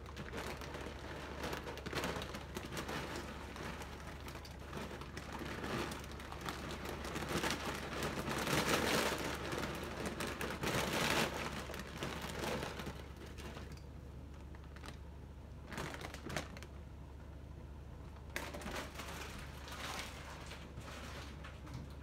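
Crinkling and crackling with irregular clicks as dry pancit canton noodles go into the pot of broth. The sound is busiest in the middle and thins out over the last several seconds, over a steady low hum.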